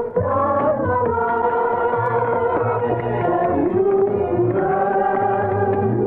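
Remastered 1940s film-soundtrack song recording: a choir sings long held notes over accompaniment, the melody stepping down about three and a half seconds in. The sound has little treble.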